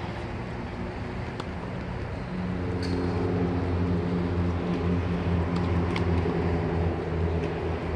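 An engine running steadily with a low-pitched drone, getting louder about two seconds in, with a few faint sharp knocks.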